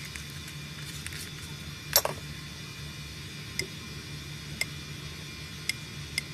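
Slime being worked by hand, giving a few short, sharp pops and clicks, the loudest about two seconds in, over a steady low hum and hiss.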